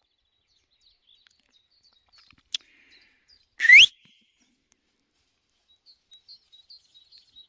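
A sharp click, then a moment later a single loud whistle that slides quickly upward, the loudest sound here. Near the end, a small bird chirps faintly in quick short notes.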